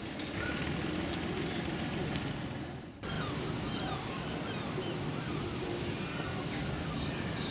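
Outdoor background sound: a steady low rumble with a few bird chirps and faint distant voices, breaking off abruptly and resuming about three seconds in.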